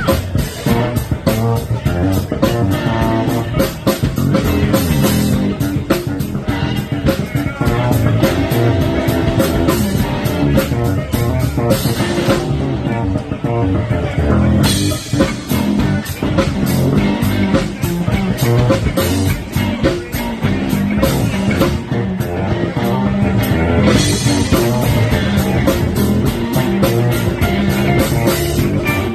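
Live rock band playing an instrumental funk-rock section with electric bass, guitar and drum kit. The cymbals drop out for a couple of seconds near the middle.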